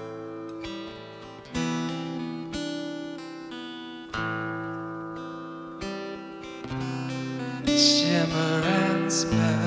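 Acoustic guitar played live, chords strummed and left ringing with single notes picked in between. Near the end a voice comes in over the guitar, the loudest part of the passage.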